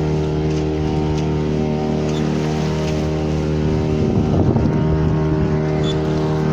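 Boat's engine running at a steady speed, a constant drone. About four seconds in there is a brief, rougher, louder rush.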